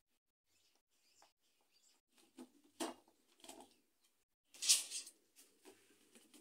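Soft clicks, knocks and rubs of the black wire-edged panels and connectors of a DIY cube wardrobe being handled and pushed into place. The loudest come about three seconds in and again near five seconds.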